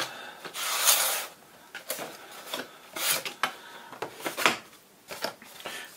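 Cardboard packaging scraping and rubbing as a printed outer sleeve is slid off the inner black product box. The longest rasp comes about a second in and another about three seconds in, with a few light taps between.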